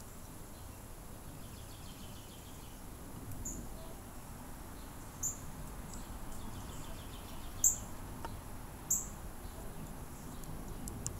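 Background outdoor ambience: a steady faint hiss with a few short, high chirps, the loudest about two-thirds of the way in, and two stretches of quick, faint trilling from small wildlife.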